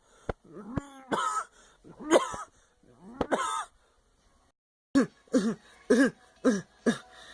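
A person acting out coughing and throat clearing: several rough coughs, a break of about a second, then a quick run of five short coughs.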